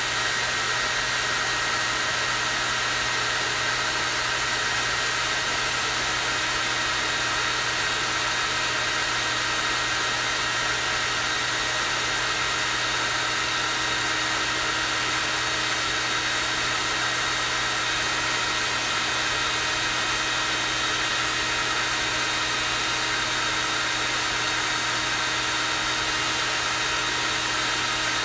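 Hair dryer running steadily on its high, strong-airflow setting: an even rush of air with a steady motor whine through it.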